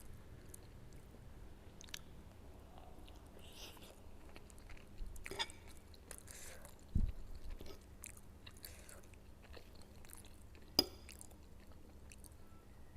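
Close-miked chewing and mouth sounds of someone eating noodles and soft egg, with scattered small smacks and clicks. There is a low thump about seven seconds in and a sharp click near eleven seconds.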